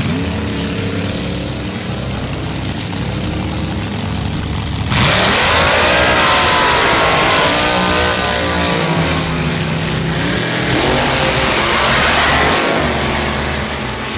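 Drag racing car engines revving, loud, with the engine pitch rising and falling. About five seconds in the sound jumps suddenly louder and brighter, and the revs climb and drop several times.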